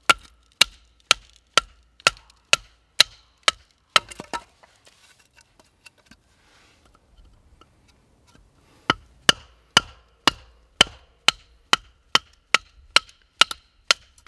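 Batoning firewood: a wooden baton strikes the spine of a knife driven into the end of a split of firewood, sharp knocks about two a second. The knocking stops for about four seconds midway, then picks up again.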